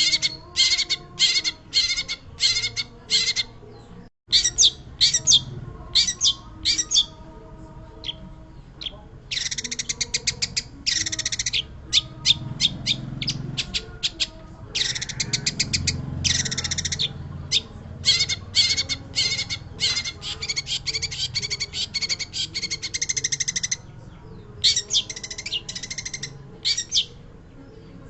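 Long-tailed shrike (pentet) singing actively: runs of rapid, harsh chattering notes in phrases of a second or two, separated by short pauses, with a momentary cut-out about four seconds in.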